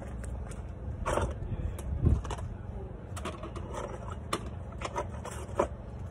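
Outdoor building-site background: a steady low rumble with scattered light clicks and knocks, and louder thumps about one and two seconds in.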